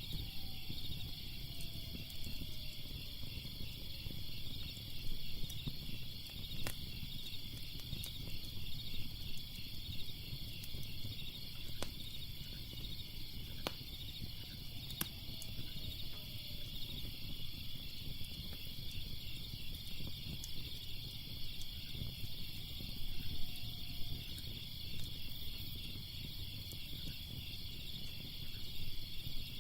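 Crackling fire with scattered sharp pops and a low rumble, under a steady pulsing chorus of crickets chirping.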